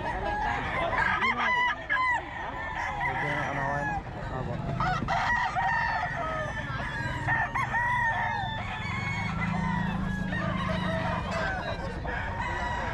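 Several gamecock roosters crowing over and over, their calls overlapping one after another, with some clucking.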